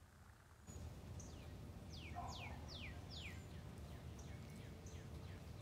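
Small birds calling, a quick run of short whistled notes that slide down in pitch, several each second, over a steady low background rumble that comes up about a second in.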